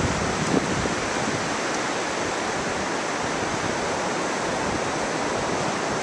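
Steady wind hiss in the trees, even throughout, with no gusts or distinct events.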